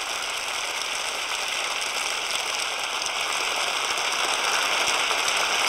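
A large seated audience applauding: a steady, dense mass of clapping that grows slightly louder toward the end.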